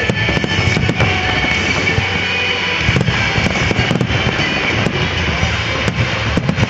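Aerial fireworks shells bursting in quick, irregular succession: many sharp bangs over a continuous rumble.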